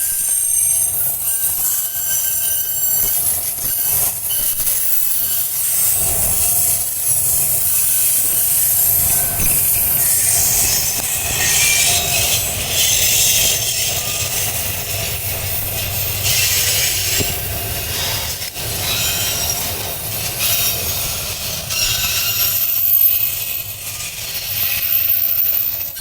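Slow freight train of timber wagons rolling past, its steel wheels squealing in high thin tones over a low rumble, with a few sharp knocks. The rumble grows heavier about six seconds in and eases off near the end.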